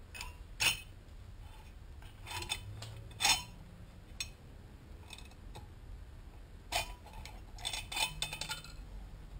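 Scattered metal clinks and light knocks as the cylinder of a GY6 four-stroke scooter engine is worked by hand off its studs, with a quick cluster of clinks near the end.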